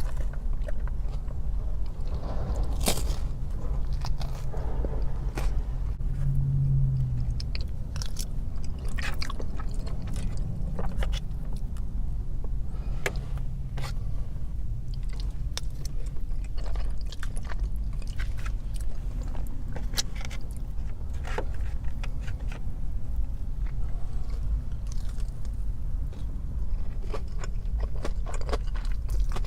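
Close-miked eating sounds: biting and chewing food, with many short, sharp mouth clicks and smacks, over a steady low hum.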